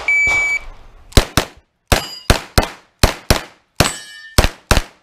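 A shot timer's start beep of about half a second, then about ten shots in quick pairs and strings from a Norinco 320 Uzi-clone carbine. A metallic ring follows some of the shots.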